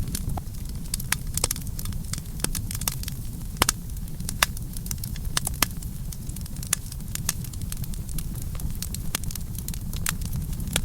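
Campfire burning with a steady low rumble and frequent irregular sharp crackles and pops of burning wood.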